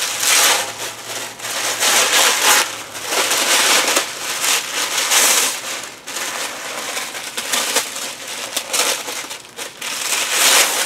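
Gift wrapping crinkling and rustling in uneven bursts as a wrapped parcel is handled and unwrapped by hand.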